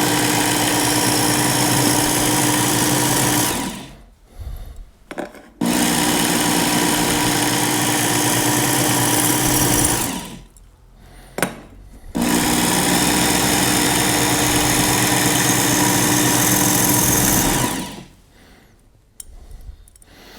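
Electric belt knife and tool sharpener (Work Sharp Ken Onion edition) running in three steady runs of about four to five seconds each, with short pauses between, as treble hooks are ground on its belt. Light clicks of hook handling follow near the end.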